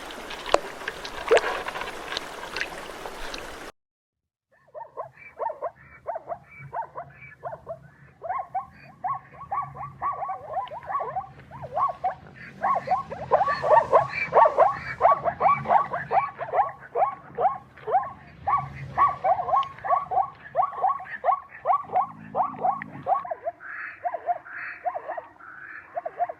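Animal calls: after a cut about four seconds in, a long fast run of short squeaky calls, several a second, dies away near the end into a different, lower sound.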